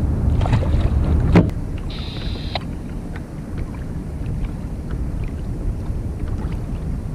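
Wind rumbling on the microphone and water against a fishing kayak, with one sharp knock about a second and a half in and a brief high buzz just after it.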